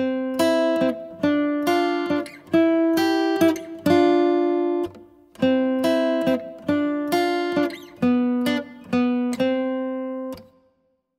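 Background music: a melody of plucked acoustic guitar notes, each ringing and decaying, that dies away near the end.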